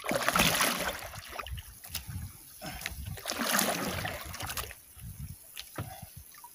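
Water washing against a small outrigger boat's hull in two rushing swells, the first sudden and about a second long, the second building and fading over about two seconds, with scattered clicks.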